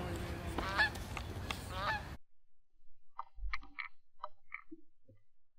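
Canada geese honking: several calls over a steady hiss, then, after the background drops away abruptly about two seconds in, a few more scattered honks.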